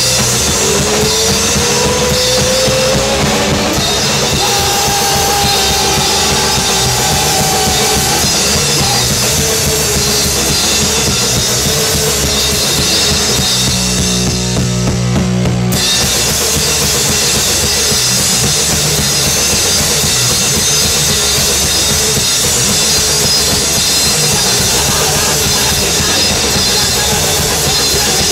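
Rock band playing loudly in a rehearsal room: drum kit with bass drum and cymbals, electric bass and electric guitar through amplifiers. About fourteen seconds in, the drums and cymbals stop for about two seconds, leaving a held low note, and then the full band comes back in.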